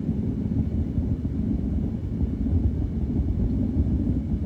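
A deep, steady rumble from the sky with no separate claps, heard as unusually long rolling thunder.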